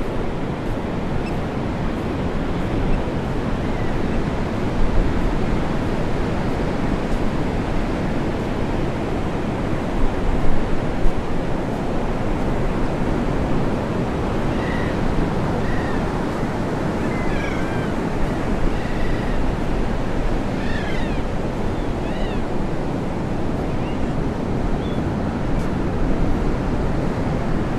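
Surf breaking on a sandy beach: a steady wash of waves, with a few short, high, gliding calls in the second half.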